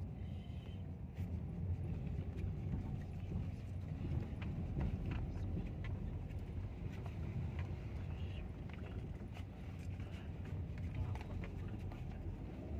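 Car cabin road noise: a low, steady rumble from the engine and tyres, with many small irregular knocks and rattles as the car drives over a rough road surface.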